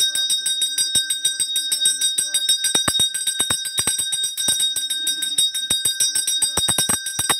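Puja bell rung rapidly and continuously during a fire offering, its bright ringing tones renewed by fast, even strikes. A low steady tone comes and goes beneath the ringing.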